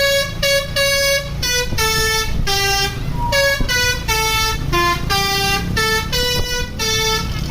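Bus telolet horn playing a quick melody: a string of distinct horn notes jumping between pitches, about two notes a second, over the bus engine's low rumble. The tune stops near the end.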